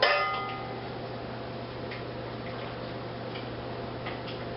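Melted chocolate and butter being scraped from a dish into a mixing bowl. A brief ringing clink of dish against bowl fades within half a second, then a few soft taps and scrapes sound over a steady low hum.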